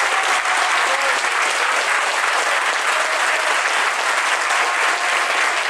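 Large crowd clapping, a dense steady applause.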